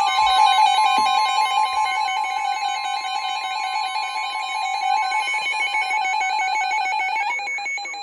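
Emergency alert attention tone of the kind played ahead of a weather warning: a continuous, loud electronic tone that holds steady, then cuts off about seven seconds in. It signals that a severe thunderstorm warning is about to be read.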